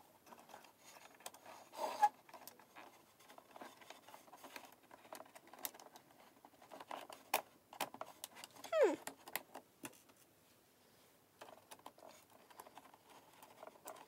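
Hard plastic parts of a toy bus stop model being handled and clipped together: scattered small clicks and taps, with a short falling squeak about nine seconds in.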